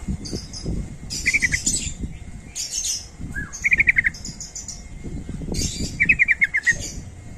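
Yellow-vented bulbuls (trucukan) calling: three quick runs of five or six sharp chirps, a couple of seconds apart, among higher scratchy chatter, over a low rumbling background.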